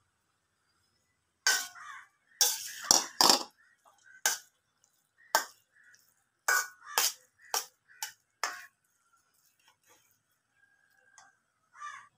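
Slotted steel spatula clinking against a stainless steel kadai while cooked rice is stirred into a mango mixture: about a dozen sharp, irregular metal clinks, each ringing briefly, over several seconds.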